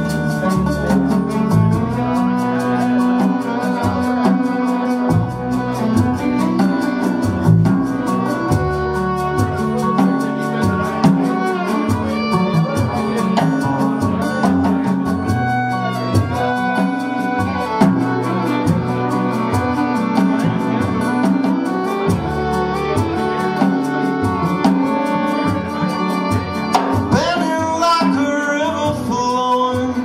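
Live band playing a song: fiddle over strummed acoustic guitar, upright bass and drums.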